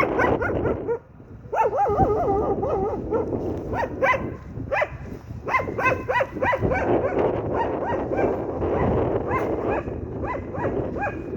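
A dog barking repeatedly in short barks, with a wavering whine about a second and a half in, over wind rumbling on the microphone.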